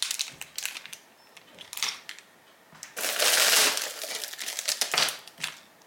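Thin plastic packaging crinkling as it is handled, in a few short crackles. The longest and loudest stretch comes about three seconds in.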